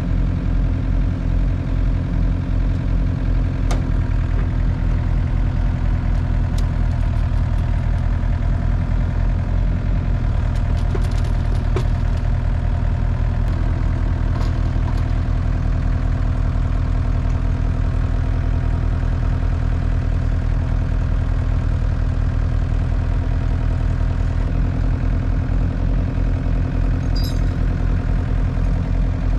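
An engine running steadily at a constant speed throughout, with a few faint clicks and knocks over it.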